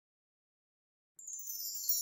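Silence, then a little over a second in, a high glittering chime shimmer starts, its lower edge sweeping steadily downward: a magic-sparkle sound effect for an animated shooting star.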